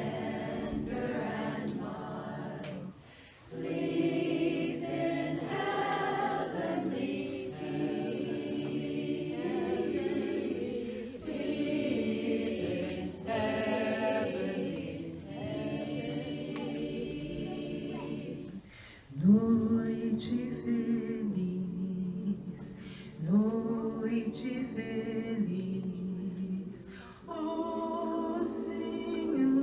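Women's barbershop chorus singing a cappella in close harmony, held chords in phrases with brief breaks between them.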